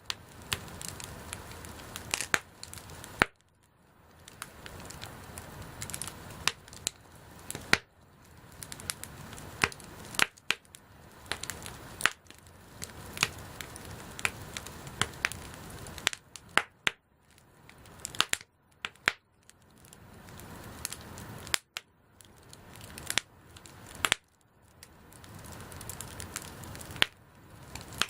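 Wood campfire crackling, with sharp pops of burning wood over a steady hiss. The hiss drops out suddenly several times.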